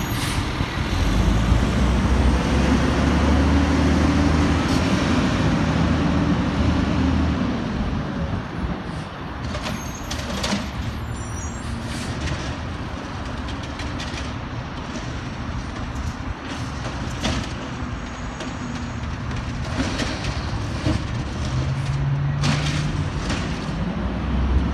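Volvo garbage truck's diesel engine running loud as the truck pulls away, then quieter as it moves off down the street. A few short air hisses from its air brakes follow, and the engine note rises again near the end.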